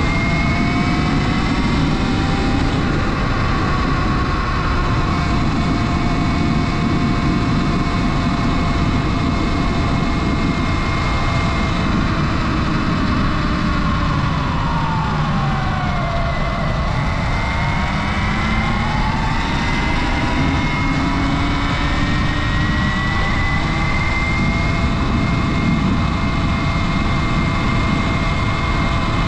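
Sur Ron Light Bee electric dirt bike under way: its motor whine holds steady, falls in pitch about halfway through as the bike slows, then climbs again as it speeds back up, over a constant low rushing noise.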